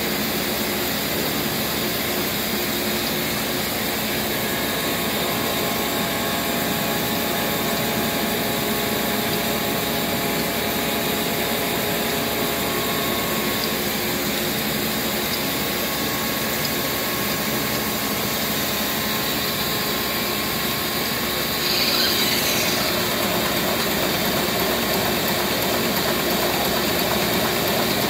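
Bertoli HA33037 high-pressure homogenizer running: a steady mechanical hum from its motor-driven three-piston pump. About 22 seconds in there is a brief hiss, and the running sound becomes slightly louder.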